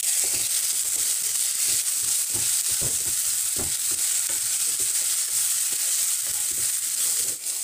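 Tomatoes, onions and ground spices sizzling in hot oil in a non-stick frying pan while a spatula stirs and scrapes through them in irregular strokes: the masala being fried before the potatoes go in.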